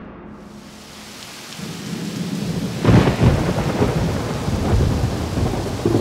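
Rain falling steadily, fading in over the first couple of seconds, with a sudden clap of thunder about three seconds in.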